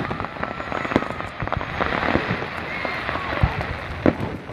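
Fireworks display: a dense crackle of small reports from bursting shells, with several heavier bangs scattered through, the loudest right at the start.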